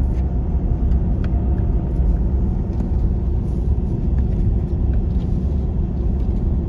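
Vehicle driving along an unpaved dirt road, heard from inside: a steady low rumble of engine and tyres, with light rattles and ticks now and then.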